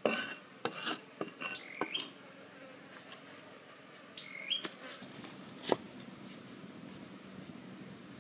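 Meat cleaver chopping through a raw chicken on a wooden chopping board: a fast run of sharp chops in the first two seconds, then one more hard chop about two-thirds of the way through. A couple of short high chirps are heard between the chops.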